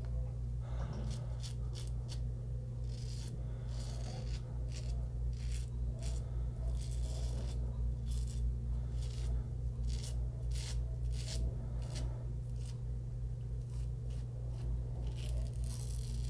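Merkur 34G double-edge safety razor scraping through lathered stubble in short, repeated strokes, each a brief crisp rasp of cut whiskers. A steady low hum runs underneath.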